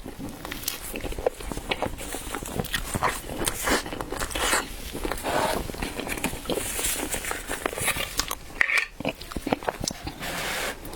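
A person biting and chewing a taro-filled chilled bread close to the microphone, in many short irregular bites and chews.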